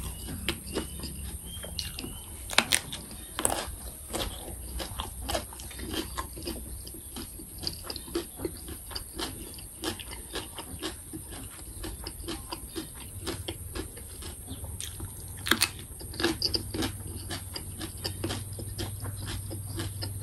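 Close-up chewing of a crunchy raw vegetable with chili paste: a steady run of short crunches and mouth clicks, with a few louder crunches scattered through.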